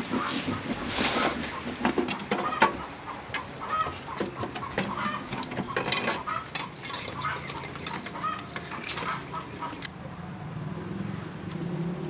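Chickens clucking now and then, mixed with clinks and knocks of an aluminium steamer pot and a metal fork.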